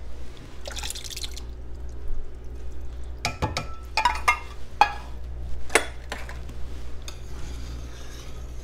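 Canned clams and their juice poured from a metal tin into a pot of chowder. Between about 3 and 6 seconds in there is a string of sharp, ringing metal clinks as the can knocks against the stainless pot. Near the end comes the soft swish of a wire whisk stirring the thick soup.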